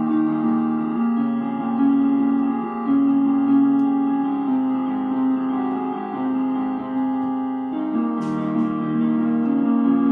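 Electronic keyboard played with a piano sound, sustained chords changing every second or so. A brief soft noise sounds over it about eight seconds in.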